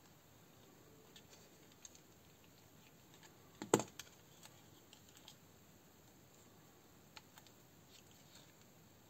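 Faint, scattered small clicks and taps of hands and a small screwdriver working on the plastic frame and parts of a Tokyo Marui M9 electric airsoft pistol, with one louder sharp clack a little under four seconds in.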